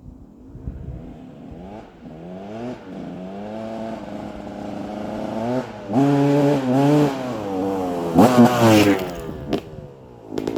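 KTM 200 EXC two-stroke enduro engine with its stock exhaust, revs rising and falling as it grows louder over the first six seconds. Sharp throttle blips follow about six and eight seconds in.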